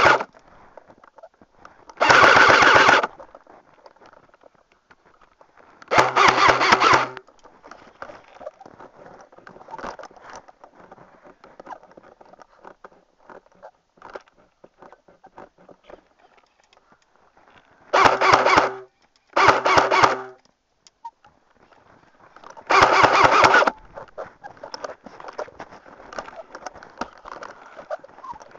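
Airsoft gun firing five full-auto bursts of about a second each, a rapid rattle of shots over the hum of its motor; the fourth and fifth come close together. Faint scattered ticks and rustling fill the gaps between bursts.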